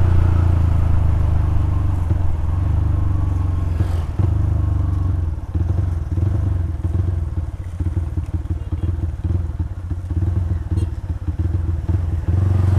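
Yamaha Scorpio 225 single-cylinder four-stroke running through an aftermarket exhaust while riding, steady under throttle at first. From about five seconds in the throttle is eased and the note turns choppy and uneven. It picks up to a full steady note again near the end.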